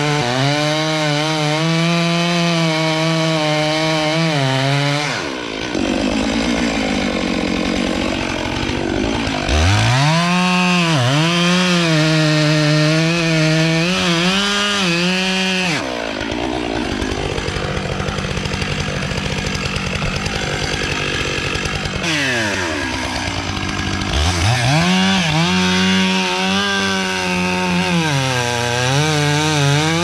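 Two-stroke chainsaw running at high revs and cutting a felling notch into a large oak trunk near the base. Its pitch sags and recovers again and again as the bar loads up in the wood.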